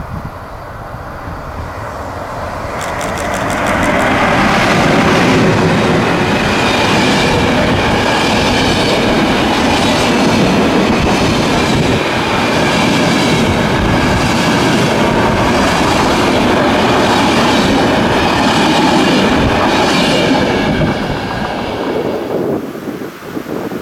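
A locomotive-hauled passenger train with a long rake of coaches approaching and passing at speed. The rumble and clatter of the wheels on the rails builds over the first few seconds, holds loud for most of the pass, and dies away near the end.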